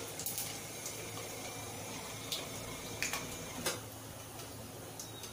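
Cumin seeds sizzling in hot mustard oil in a steel kadhai: a steady frying hiss with a few sharp pops and crackles.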